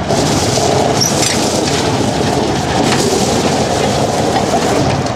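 Riding lawn mower running as it is driven, a steady, loud, dense mechanical noise.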